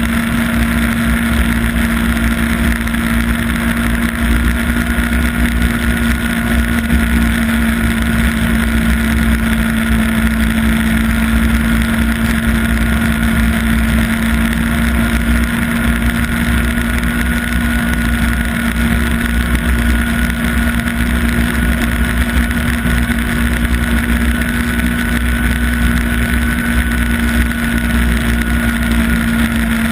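Yamaha Apex snowmobile's four-stroke four-cylinder engine running at a steady cruising speed. It makes a constant drone with an unchanging hum and a low rumble underneath.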